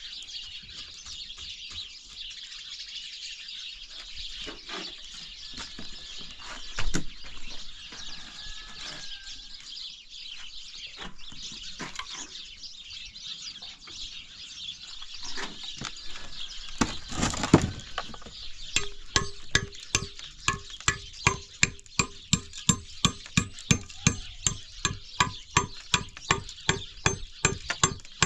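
Birds chirping steadily, with a few scattered knocks and a short rush of noise. About two-thirds in, a regular knocking starts, between two and three strikes a second, each strike with a ringing note.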